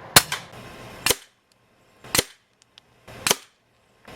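Umarex Notos .22 air rifle firing pellets: four sharp cracks about a second apart, each with a short ring after it.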